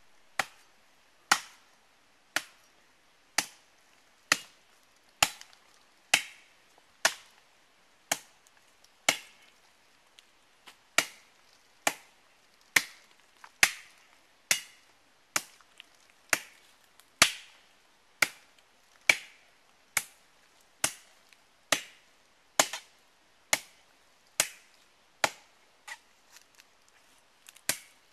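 Machete chopping into a palm trunk: sharp blows about once a second in a steady rhythm, with one short pause partway through.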